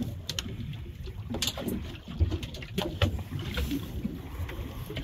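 Wind buffeting the microphone and choppy water slapping against an aluminium boat hull, with a few heavier low thumps and scattered short clicks and knocks.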